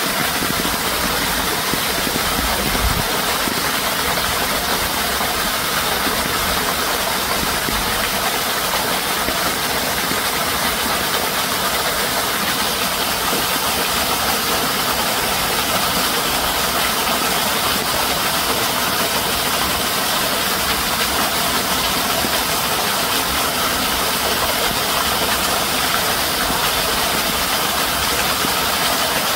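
A loud, steady hiss, even and unchanging, with no distinct calls or knocks.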